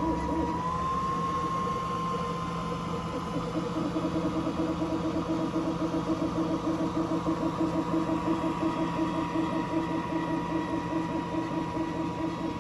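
JICCODA 10-watt diode laser engraver running a line-and-fill job on sheet metal: a steady motor whine and hum, with a quick regular pulsing of about four to five beats a second from a few seconds in as the head sweeps back and forth.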